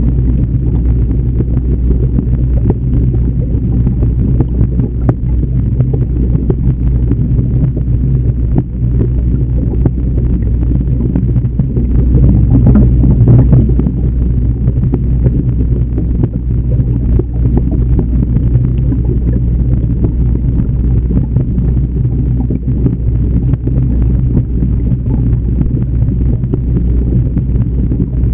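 Steady low underwater rumble and hum inside an aquarium tank, from the tank's water circulation picked up by the submerged camera. It swells slightly about halfway through.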